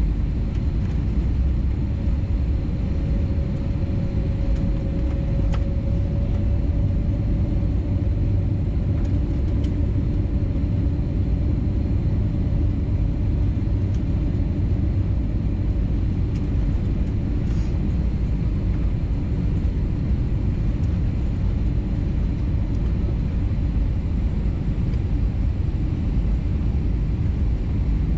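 Airbus A320neo cabin noise on the approach: engines and airflow make a steady low rumble with a faint hum.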